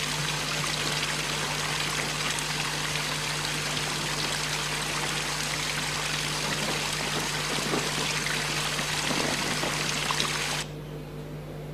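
Steady rushing water sound from the soundtrack of a video artwork played through the room's speakers, over a low steady hum. It cuts off suddenly about a second before the end.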